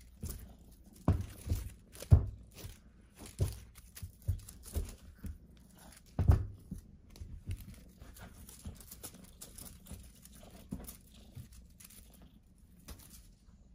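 Irregular soft thumps, scuffs and rustles of a kitten pouncing and batting at a feather wand toy on a fleece-covered surface. The loudest bumps come about a second and two seconds in and again around six seconds; later there is only light scuffling.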